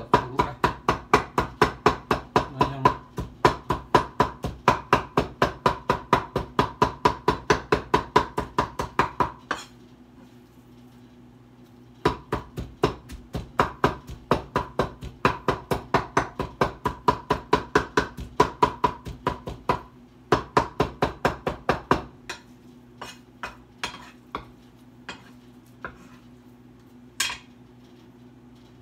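Knife chopping raw meat on a wooden cutting board in fast, even strokes, about five a second. The chopping stops for about two seconds around ten seconds in, then starts again. After about twenty-two seconds it thins out to scattered chops, with one louder knock near the end.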